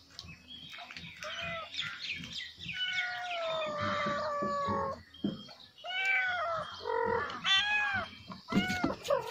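Cat meowing over and over: a run of short meows, then one long drawn-out meow that falls slowly in pitch, then several more arched meows near the end.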